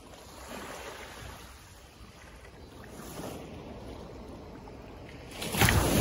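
Small sea waves lapping onto a sandy beach in a calm bay. Two soft washes come in, then about five and a half seconds in a wave breaks right at the shore, the loudest sound.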